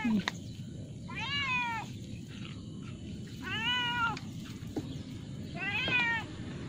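Ginger cat meowing three times, about two seconds apart, each meow rising and then falling in pitch.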